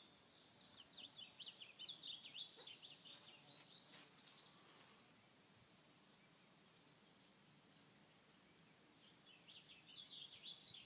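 Faint outdoor ambience: a steady high-pitched insect drone, with a flurry of quick bird chirps in the first few seconds and again near the end.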